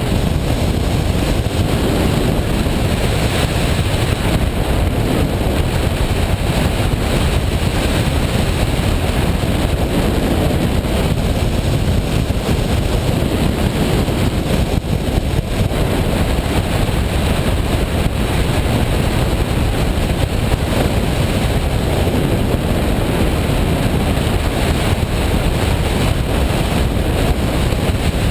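Washing machine running: a loud, steady noise, strongest in the low end, with no clear rhythm or tone.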